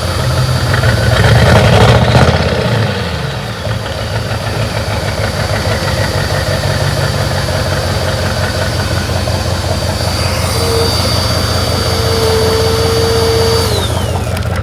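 Ford 7.3 L Power Stroke V8 turbodiesel idling, revved once about a second in, its pitch and level rising then dropping back to idle. Near the end a thin steady whine joins for a few seconds, then winds down.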